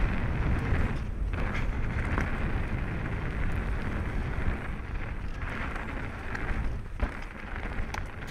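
Canyon Strive mountain bike rolling along a gravel trail: a steady rush of tyre noise on the loose surface with a low rumble underneath, dipping briefly a few times, and a few sharp rattles near the end.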